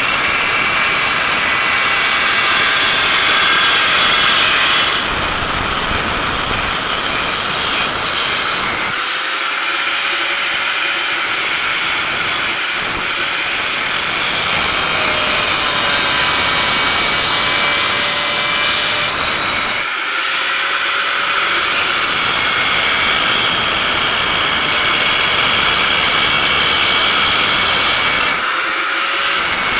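Angle grinder grinding a steel weld: a steady, loud high-speed whine with harsh grinding hiss. It breaks off briefly about nine seconds in and again around twenty seconds in.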